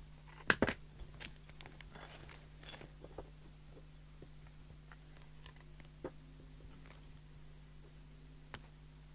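Handling knocks and clicks from a mobile CB radio's case as it is set down on a cutting mat after reassembly: a sharp knock about half a second in, lighter clicks over the next few seconds, then two single ticks. A steady low hum sits underneath.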